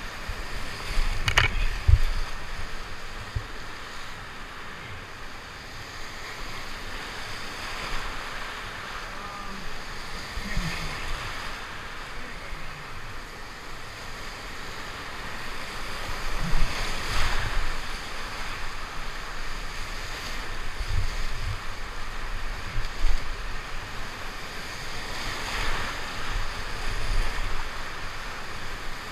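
Whitewater rapids on a mountain river running very high, a steady rush of churning water heard close from a canoe's bow. There are occasional low thumps against the microphone.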